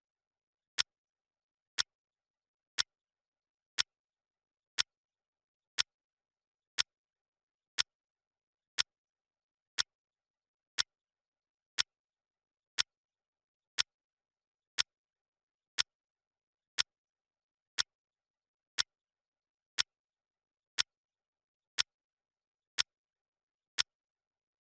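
Countdown timer's clock-tick sound effect: one sharp tick every second, with silence between.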